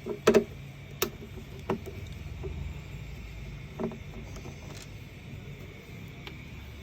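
Scattered sharp clicks and knocks of a screwdriver and loose screws on the plastic housing of a paper shredder as its screws are taken out. The loudest cluster comes right at the start, with single knocks every second or two after it.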